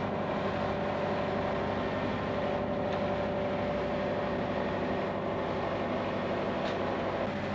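A vehicle engine running steadily: a constant drone with an even hum that does not change in pitch or level.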